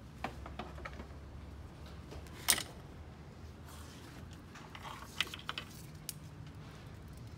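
Scattered light clicks and taps of parts being handled in a car's engine bay, with one sharp, loud click about two and a half seconds in, over a low steady hum.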